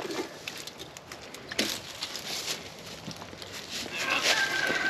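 Dry leaf litter and brush rustling with scattered knocks and scrapes as an old motorcycle is manhandled out of the undergrowth, one sharper knock about a second and a half in. Near the end a thin, steady high tone sounds for about a second.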